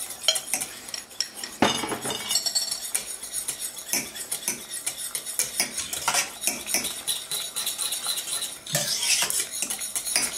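Metal wire whisk clinking and scraping against a stainless steel saucepan in quick, continuous strokes, stirring cornstarch slurry into asparagus stock to thicken the soup.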